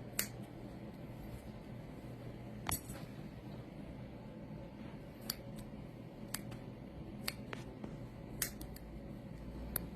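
Scissors snipping through locs of hair: about ten short, sharp cuts, spaced irregularly a second or two apart.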